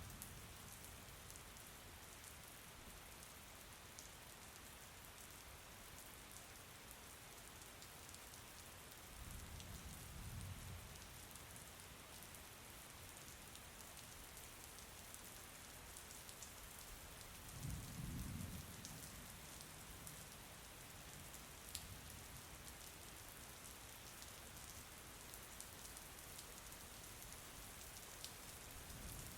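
Faint, steady rain with scattered sharp drop clicks. Two low rumbles swell up about ten and eighteen seconds in.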